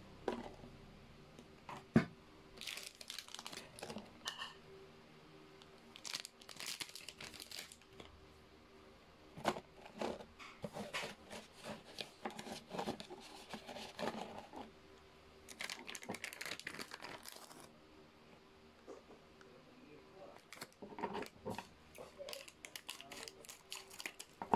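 Plastic packaging and the plastic tray of a self-heating rice meal being handled: irregular crinkling and rustling with small clicks and knocks, one sharp knock about two seconds in.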